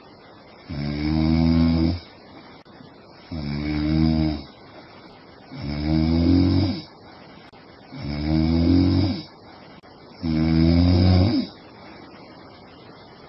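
A sleeping woman snoring: five loud, deep snores, each a little over a second long, coming about every two and a half seconds.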